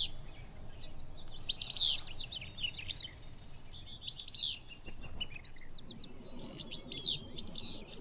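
Willow flycatcher singing its two-part "fitz-bew" song, repeated a few times, with shorter chirps in between.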